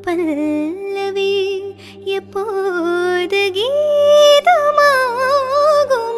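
A woman singing a slow melody with sliding, wavering ornamented notes, over a steady held drone accompaniment.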